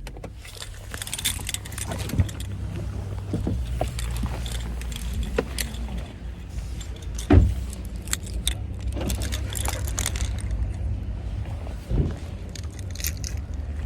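Keys jangling, with repeated small clicks and rattles as they and other items are handled inside a parked car, over a steady low rumble. One louder thump comes about seven seconds in.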